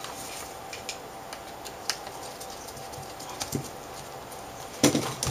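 Small precision screwdriver turning a screw into the side of an LCD panel's metal frame: faint scattered metal ticks and clicks, then a louder clatter of handling near the end, over a faint steady hum.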